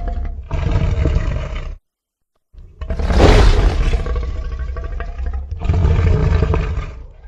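Deep, rumbling creature roars made as sound effects for a fictional dinosaur-like monster. One roar breaks off into a moment of total silence about two seconds in, then a louder, longer roar follows, and a further one near the end.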